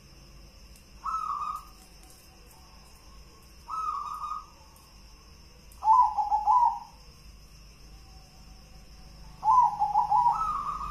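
Zebra dove (perkutut) cooing: four phrases a few seconds apart. The first two are short. The last two are longer and break into quick stuttering notes, the last ending on a higher note.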